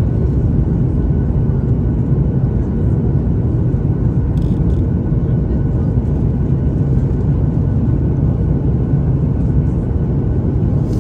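Steady cabin roar of a Boeing 737 MAX 8 descending to land: its CFM LEAP-1B turbofans and the airflow, heard inside the passenger cabin as a deep, even rumble with faint steady tones above it.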